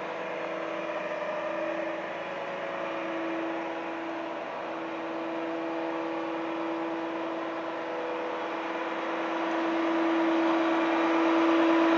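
Volvo FM aerial fire truck's diesel engine running steadily to power the boom's hydraulics: an even mechanical hum with a steady whine on top, growing a little louder near the end.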